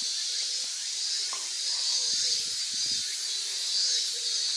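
Steady, high-pitched drone of a summer insect chorus.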